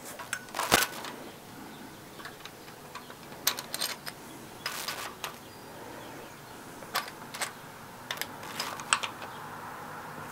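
Irregular light metallic clicks and clinks of camshaft bearing caps and their bolts being loosened, lifted off and set down on a Honda K20 cylinder head.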